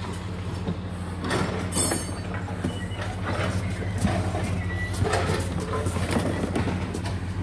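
An engine running steadily with a low hum, with irregular knocks and clatter of work over it, several of them about a second apart.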